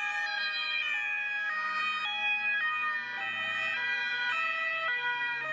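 German ambulances' two-tone sirens (Martinshorn) sounding together. Each siren steps back and forth between a high and a low note, and the overlapping sirens fall in and out of step.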